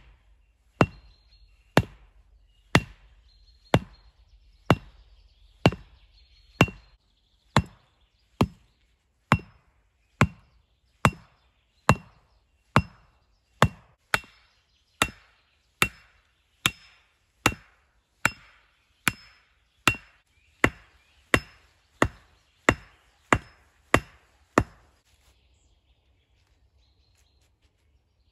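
A hatchet striking wood in steady, evenly spaced blows, a little under one a second and quickening slightly, about thirty in all, each with a short metallic ring. The blows stop about 25 seconds in.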